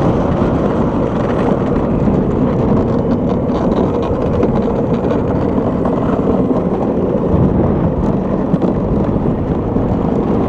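Luge cart rolling fast down an asphalt track: its wheels rumble steadily on the paving.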